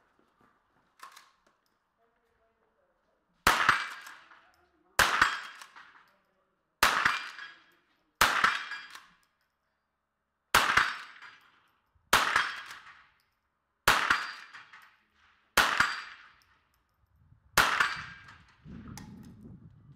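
Nine shots from a rimfire rifle, fired about one and a half to two seconds apart. Each crack is followed a moment later by the ring of a steel target being hit.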